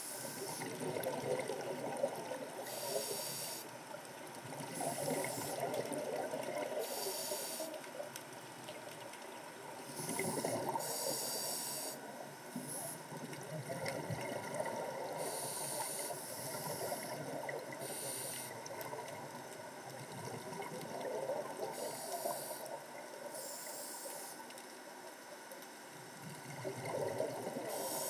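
Scuba diver's regulator breathing underwater: short hissing draws on the regulator alternate with low rushing surges of exhaled bubbles, a breath cycle every few seconds.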